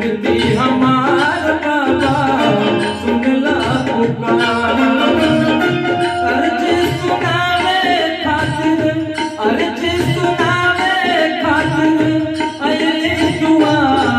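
Male voice singing a Hindi devotional bhajan over a steady tabla-style rhythm loop played from a Roland XPS-10 keyboard, with harmonium accompaniment.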